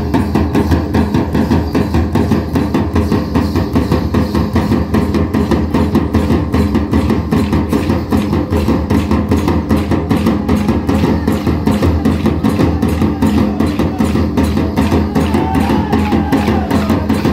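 Traditional folk drumming with a fast, even, continuous beat for a circle stick dance. A faint wavering melody line joins near the end.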